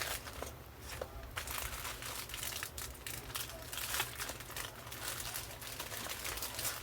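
Plastic packaging crinkling and rustling as it is handled, in irregular crackles.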